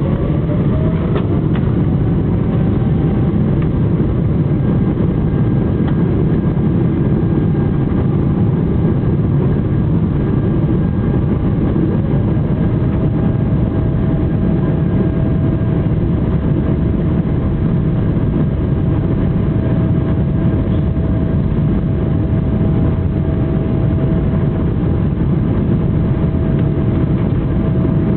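Boeing 777-300ER's GE90 turbofan engines running at takeoff power: a loud, steady rumble with a thin whine that rises in pitch in the first second and again about twelve seconds in, then holds steady.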